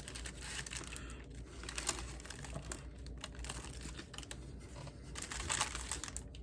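Paper food wrapper crinkling and rustling in irregular bursts while a breakfast sandwich is handled, a little louder about five seconds in.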